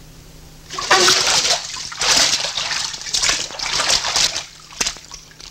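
Water splashing and sloshing, starting about a second in and surging several times over some four seconds, then a few short sharp knocks near the end.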